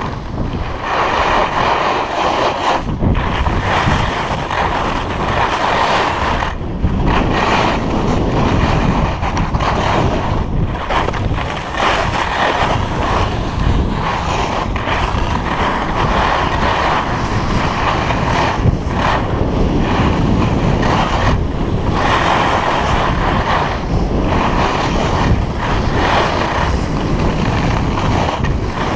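Wind rushing over the microphone and skis scraping over packed snow during a fast downhill ski run: a loud, steady rush with short dips every few seconds.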